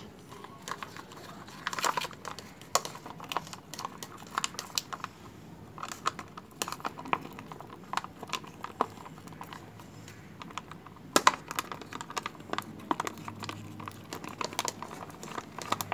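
A plastic straw stirring thick, stiffening slime in a thin plastic cup held in the hand: a steady run of irregular clicks and crinkles as the straw knocks the cup wall and the soft plastic flexes.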